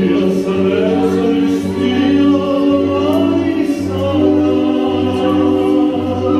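A man singing live into a handheld microphone, amplified through a PA speaker, with long held notes over musical accompaniment.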